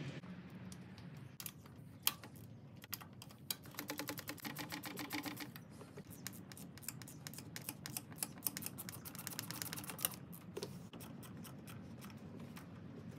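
Hands working on a Subaru Impreza's ignition coil pack under the hood, making scattered clicks and knocks, with a run of fast, even ticking between about four and five and a half seconds in.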